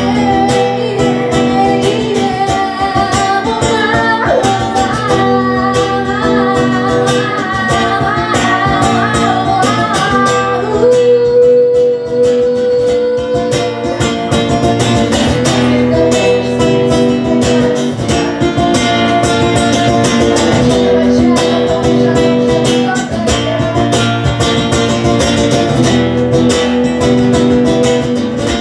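Acoustic guitar playing with a wordless melody line sung over it, including one long held note about halfway through.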